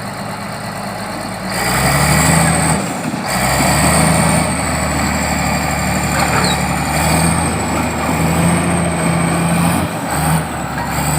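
Heavy diesel engine running steadily, getting louder about two seconds in, with a faint high whine above it.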